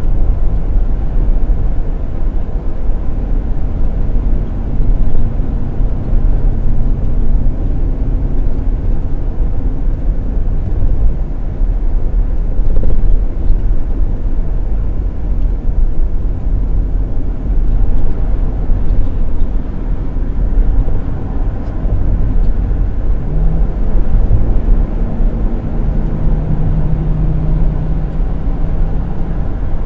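Cab noise of a 16-foot moving van towing a car carrier at highway speed: a steady low rumble of engine and road, with the engine's hum shifting in pitch now and then.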